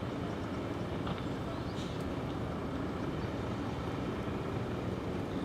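Steady motor-vehicle engine and road noise, a constant low hum with no siren sounding.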